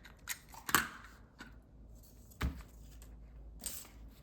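Small items of an everyday-carry kit being handled: about five light clicks and taps, the loudest a little under a second in.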